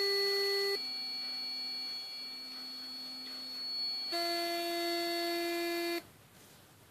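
Alfawise RTB200 sonic electric toothbrush running in the air with a steady buzz, stepping between its vibration modes: the buzz drops to a lower, quieter tone about a second in, returns to a higher, louder tone about four seconds in, and cuts off about six seconds in.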